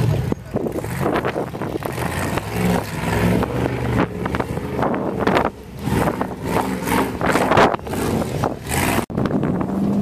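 Off-road race car engine revving up and down in bursts as it crawls over rocks, with rough gusts of wind buffeting the microphone. There is a sudden break about nine seconds in.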